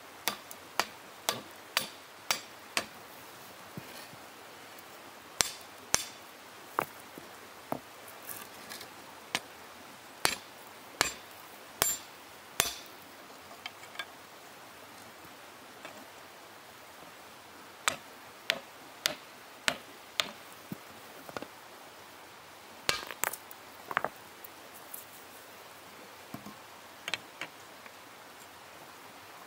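Hot iron being hand-forged on a stone anvil with a stone hammer: sharp, ringing strikes in quick runs of several blows, broken by pauses of a few seconds.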